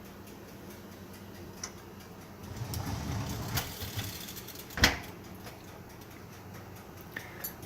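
Quiet handling noises: a soft rustling stretch about three seconds in, then one sharp knock a little later, with a few faint ticks around them.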